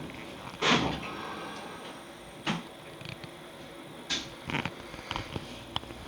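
Onboard sound of a stopped electric train: a faint steady hum with a few sharp clicks and knocks, and a short burst of hiss under a second in.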